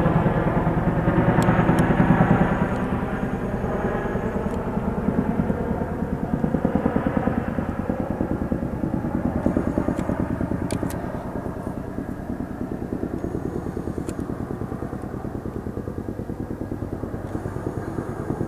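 Tandem-rotor helicopter flying past overhead, its rotors beating in a fast, even rhythm that slowly fades as it flies away.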